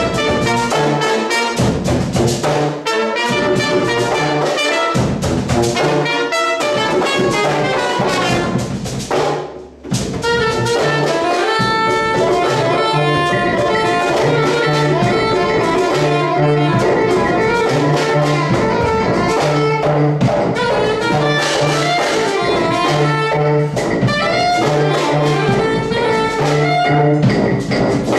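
A live brass street band plays an Afrobeat/Ethio-jazz tune with saxophones, trumpet, tuba and hand percussion. About ten seconds in the band drops out briefly, then comes back in with a repeating tuba bass line under the soprano saxophone.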